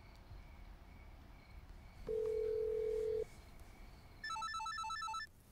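Mobile phone tones as a call is placed: a single steady tone for about a second, then, after a short gap, a rapid warbling electronic ring for about a second.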